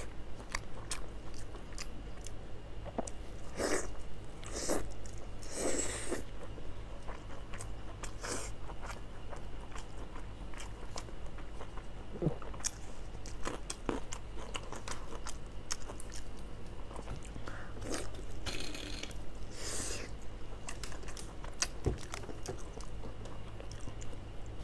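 Close-miked eating: biting into and chewing spicy tripe-wrapped meat, with irregular wet mouth clicks and louder bites every few seconds.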